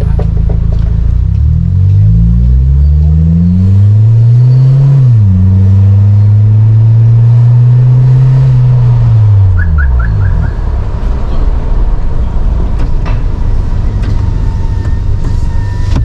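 Suzuki Jimny JB74's 1.5-litre four-cylinder through an aftermarket GReddy exhaust, heard from inside the cabin with the windows open. The revs climb under acceleration, drop suddenly about five seconds in, hold steady, then fall away as the car slows.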